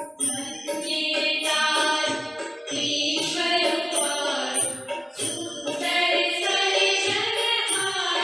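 Devotional prayer song: a voice singing over instrumental accompaniment.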